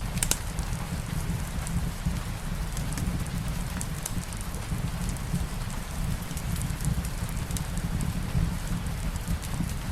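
Steady rain over a dense low rumble, mixed with a wood fire in a fireplace crackling in irregular sharp pops, one louder pop just after the start.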